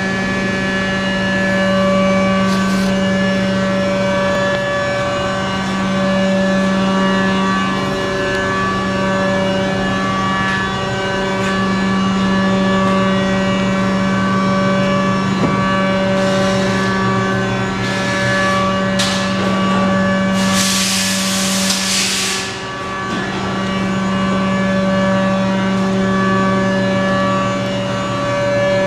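2007 BMW K1200S inline-four engine idling steadily, with a few short bursts of hiss and a longer one about twenty seconds in.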